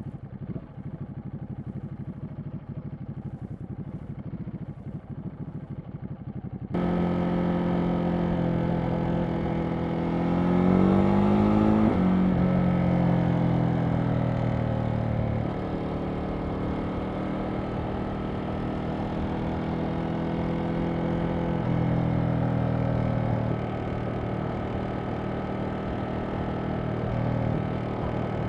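Ducati Monster SP's 937 cc Testastretta V-twin heard from the saddle while riding. For the first quarter it runs at low revs, muffled. Then it turns suddenly louder and clearer, the revs climb steeply and drop sharply once with a gearchange, and it settles into steady cruising with small throttle changes.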